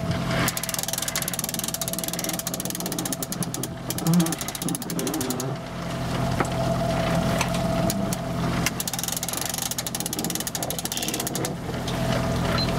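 A sailboat winch clicking rapidly on its pawls as the mainsail halyard is wound in, pausing briefly a few times, over the steady hum of the MacGregor 26X's outboard motor idling.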